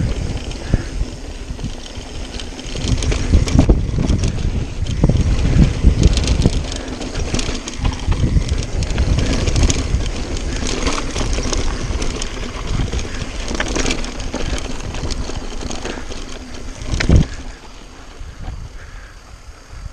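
Mountain bike riding fast down a dry dirt trail: tyres rumbling over loose dirt, the bike rattling over bumps, and wind rushing on the microphone. A sharp knock comes late on, as from a hard bump.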